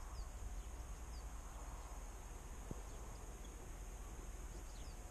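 Faint rural outdoor ambience: a steady high-pitched tone under a low hiss, with a few short, high falling chirps scattered through it and one sharp click partway through.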